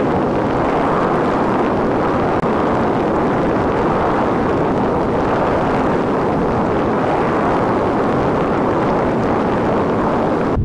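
Steady, loud rush of wind blowing over the microphone of a camera mounted on a hang glider in flight.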